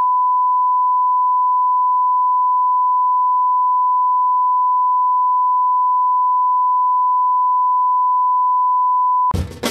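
Steady 1 kHz line-up test tone, the broadcast reference tone that goes with colour bars. It cuts off near the end as percussive music begins.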